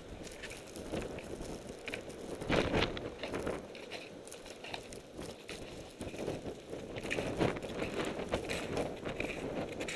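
Footsteps crunching through deep, fresh snow at an uneven walking pace.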